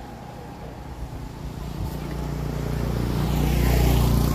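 A motor vehicle passing close by on the road: its engine hum and tyre noise grow steadily louder and peak near the end as it goes past.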